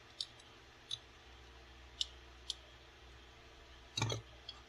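Plastic parts of a Mastermind Creations Bovis transforming-robot figure clicking as a piece is worked to see whether it opens up: scattered sharp clicks, with a louder knock about four seconds in.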